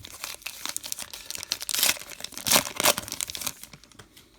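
Crinkling and tearing of a baseball card pack wrapper being handled and ripped open, in a run of sharp crackles, loudest around the middle.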